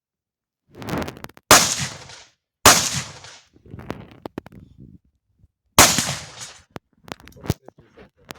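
Carbine gunfire: three sharp shots with echoing tails, the first two about a second apart and the third about three seconds later, with short metallic clicks and clanks in between.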